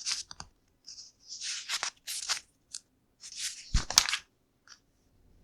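Plastic LEGO pieces being handled and sorted by hand: a string of short rustles and clicks, with one sharp knock about four seconds in.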